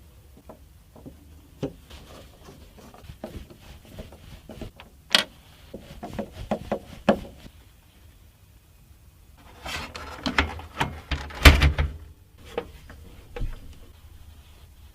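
Hands handling computer parts and packaging: irregular clicks, taps and rubbing. A busier cluster of knocks and scraping comes about two-thirds of the way in, with one loud knock near its end.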